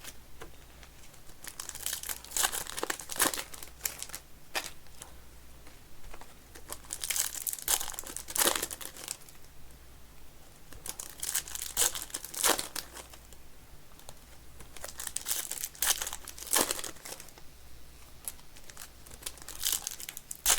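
Plastic trading-card pack wrappers being handled, crinkled and torn open, in repeated spells of crackling a second or two apart.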